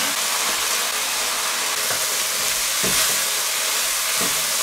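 Small insect pupae and chopped green chillies sizzling in a hot wok, stirred with a spatula, with a few soft knocks of the spatula against the pan.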